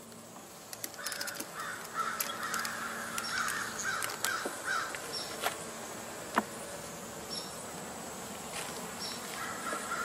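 A crow cawing in a quick series for a few seconds, and again near the end, over the faint steady hum of honey bees at an open hive. Sharp clicks and knocks of a metal frame grip and hive tool on the wooden frames, the loudest about six seconds in.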